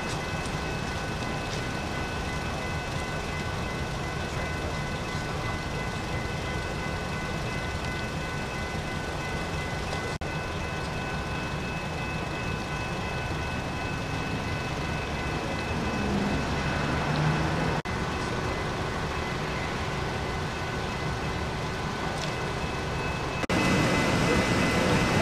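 Steady low rumble of idling heavy engines with faint voices, louder for the last couple of seconds.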